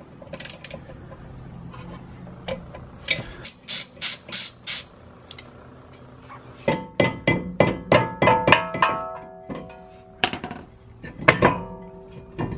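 Sharp metal clicks and clinks as a T30 Torx bit undoes the retaining screw of a Saab 9-3's rear brake rotor. From about seven seconds in come knocks with a ringing metallic tone as the rotor is worked loose from the hub.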